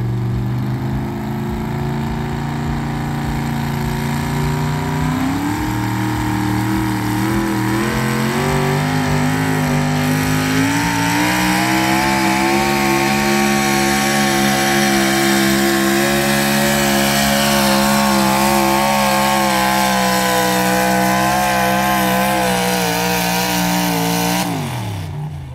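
A pulling tractor's engine working hard as it drags a weight-transfer sled. The pitch steps up about five and ten seconds in, holds high and steady, then falls away quickly near the end as the throttle comes off.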